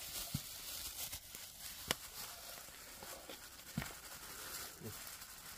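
Faint handling noise from camp cooking: four short knocks and clicks, the sharpest about two seconds in, over a steady hiss.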